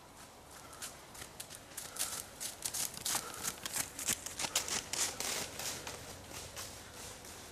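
Footsteps of a group of trail runners going past on a wet, muddy, leaf-covered forest path: a dense, irregular patter of footfalls that builds about two seconds in, is heaviest around the middle and then eases off.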